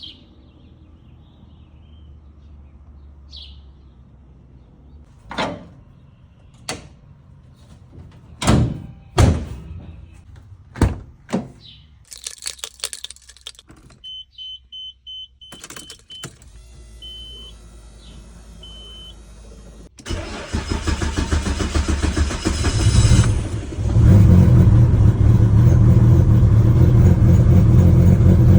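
Inside a single-turbo Nissan Skyline R32 GT-R, a series of clicks and knocks from the cabin is followed by a run of short electronic beeps. Then the starter cranks the RB26 straight-six and it catches, settling into a loud, steady idle for the last few seconds.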